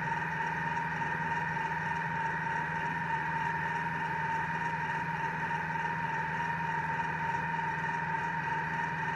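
Thermomix motor running steadily during a sauté program: an even hum with a constant mid-pitched tone over it.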